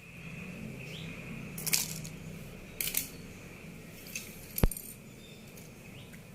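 Three sharp clicks and clinks, about a second apart, from small metal tools and plastic parts being handled while wiring an RJ45 connector onto a Cat6 cable, over a steady low background hum.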